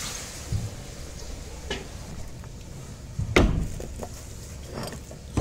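Handling knocks on a wooden plank table as sea grapes are taken out of a plastic bag: a few light knocks and one louder, sharp knock a little past halfway.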